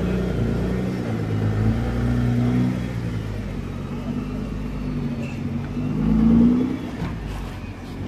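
2015 Nissan GT-R's 3.8-litre twin-turbo V6 running as the car rolls by at low speed, with short rises in revs about two seconds in and again near six seconds.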